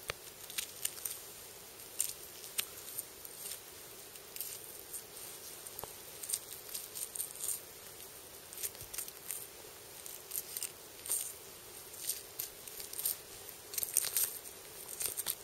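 Deer carcass being butchered by hand: faint, irregular crackling and tearing as meat, fat and membrane are pulled and cut apart from the bone.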